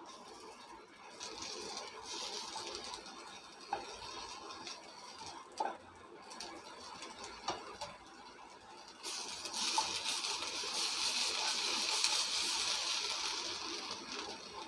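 Wooden spatula stirring and scraping grated coconut as it roasts in a nonstick frying pan, with three short knocks in the first half. In the second half the scraping hiss grows louder and steadier.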